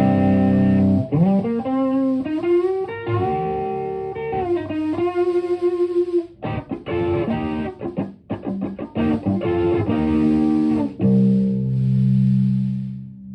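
Stratocaster electric guitar played through a TS-808 Tube Screamer overdrive pedal into a Marshall Plexi amp and 4x12 cabinet. A chord rings out, then single-note lead lines with bends, then a run of short choppy notes about halfway in, and a held chord near the end.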